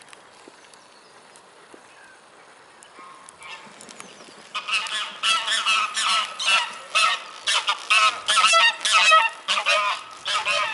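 A flock of geese flushed into flight, honking loudly in alarm. Many overlapping calls in quick succession begin about four seconds in, after a quiet start.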